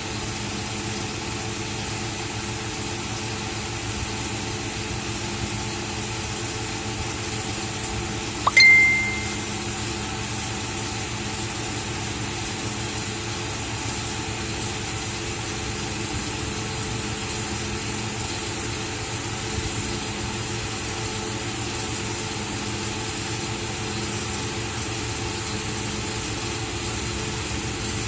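A steady mechanical hum, even and unchanging, with one short high beep about eight and a half seconds in.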